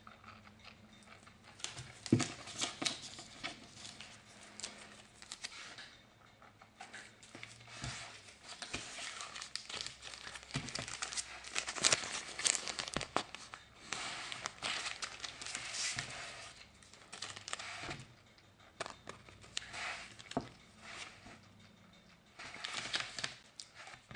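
Clear plastic packaging bags crinkling and crackling as they are handled and opened, in irregular flurries with sharp clicks and brief lulls.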